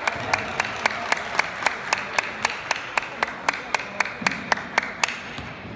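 Spectators in a large sports hall clapping in a steady rhythm, about four claps a second, over a haze of crowd cheering; the clapping and cheering stop shortly before the end.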